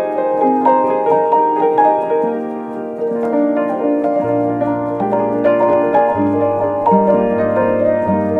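Background piano music, a melody of struck notes; a low bass note comes in about four seconds in.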